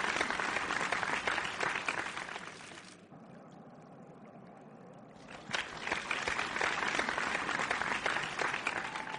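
Audience applause in two stretches: the first dies away about three seconds in, and a second begins about five and a half seconds in and eases off near the end.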